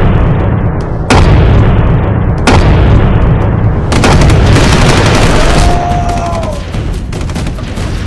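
Dubbed battle sound effects: two heavy booms about a second and a half apart, then from about four seconds in dense rapid gunfire, with a brief whistling tone in the middle of it.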